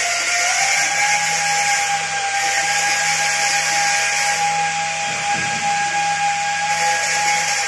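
Vibratory bowl feeder running with O-rings on its spiral track, giving a steady, high-pitched whine over a low hum and a hiss.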